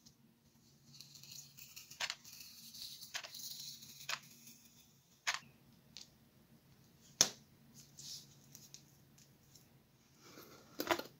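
Hands working on foamboard with a hot glue gun and a spar rod: a soft rustling hiss over the first few seconds, then several sharp clicks and taps as the rod is set into the glued groove. The loudest tap comes about seven seconds in, and a quick cluster of clicks comes near the end.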